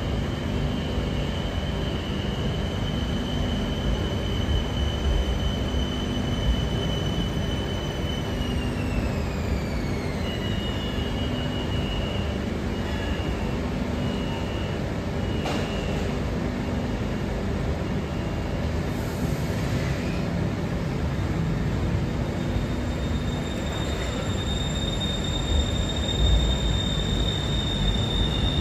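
BTS Skytrain electric trains at an elevated station: a steady low rumble with a high motor whine that holds, then glides down in pitch about a third of the way in. A train pulls away from the platform, and a new high whine comes in near the end.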